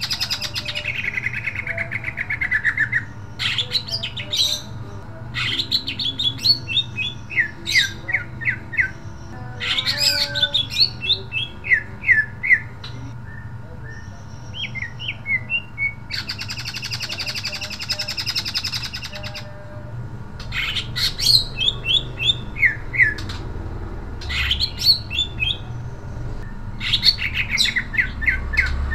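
Caged male green leafbird (cucak ijo) singing in full voice: bursts of rapid, sharp, high notes that slide downward, broken by harsh, buzzy stretches and short pauses.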